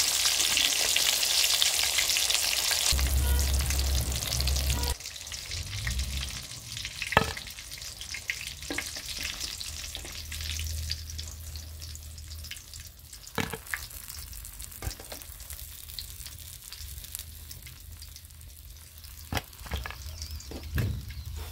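Chicken pieces deep-frying in hot oil in a metal karahi, a dense, steady sizzle, while tongs lift them out. The sizzle cuts off about five seconds in, leaving a quiet stretch with a few light clicks.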